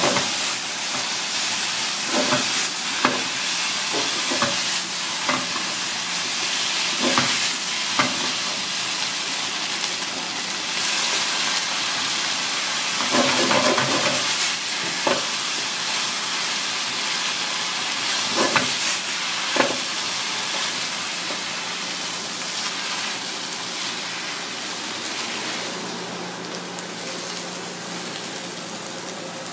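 Squid-ink pasta with squid and vegetables sizzling in a hot pan, stirred with a wooden spatula that knocks against the pan every few seconds. The sizzle fades toward the end.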